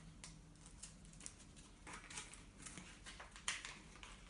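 Faint rustling and light taps of a paper instruction sheet being handled and unfolded, with one sharper tick about three and a half seconds in.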